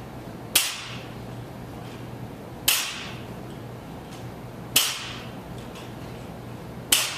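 A barbell loaded with 15-pound bumper plates hits the floor once per rep: four sharp impacts about two seconds apart, each with a short ringing tail, over a steady low hum.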